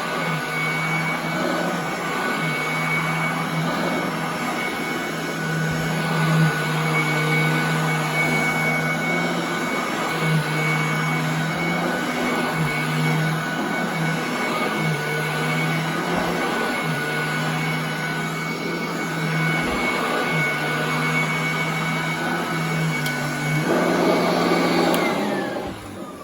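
Royal commercial heavy-duty vacuum cleaner running steadily on carpet, with a constant high whine over its motor hum. It is switched off near the end and its motor winds down.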